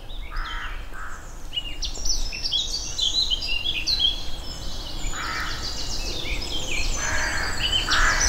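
Songbirds singing: a busy run of quick, high chirps and trills, with some lower, rougher calls joining in during the second half.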